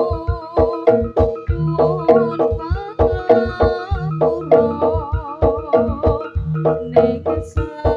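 Javanese jaranan-style gamelan music: drums beating a quick, steady rhythm over ringing pitched metal percussion, with a wavering melody line above.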